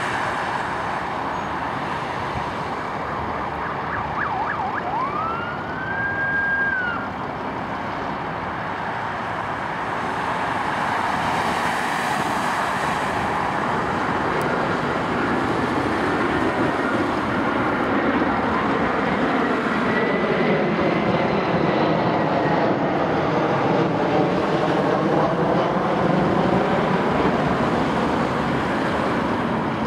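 Police car siren over steady road traffic noise: a few short chirps and a quick rising whoop about four to seven seconds in, then a siren that rises and falls in pitch through the second half.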